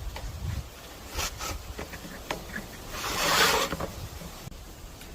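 Light clicks and knocks of wooden SUP frame pieces being handled and fitted together at their joints, with a brief louder rub about three seconds in.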